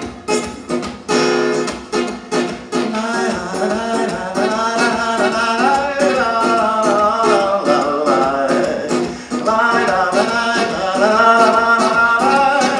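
Acoustic guitar strummed in a steady rhythm with a man singing over it, the voice coming in a few seconds in.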